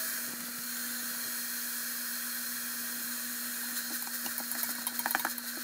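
Diced onion frying in hot olive oil in an electric multicooker's stainless-steel pot: a steady sizzling hiss. From about four seconds in, a slotted spatula scrapes and clicks against the pot as the onion is stirred.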